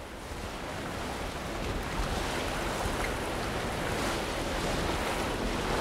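Water rushing along the hull of a sailing yacht under way, with wind on the microphone: a steady rush that slowly builds in level.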